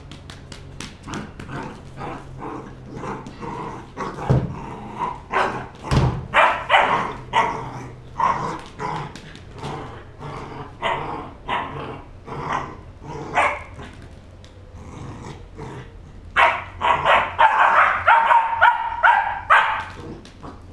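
Three-month-old border collie puppy barking over and over in play, short barks at about two a second, breaking into a quick, louder run of barks near the end.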